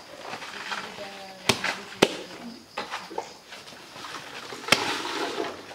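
Green plant stalks being chopped with a knife: a few sharp cracks, the loudest about two seconds in and near the end, with low voices in between.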